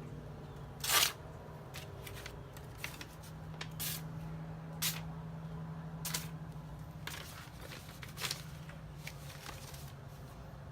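Kitchen knives being handled, with scattered short clicks and brief scrapes, the loudest about a second in, over a steady low hum.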